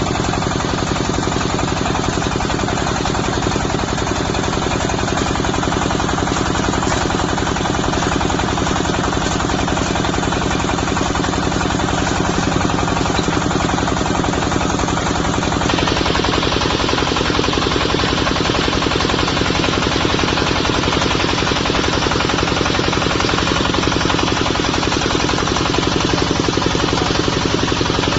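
Diesel engine of a portable water well drilling rig running steadily, with a fast even knock. A little after halfway the sound turns brighter, with more hiss on top.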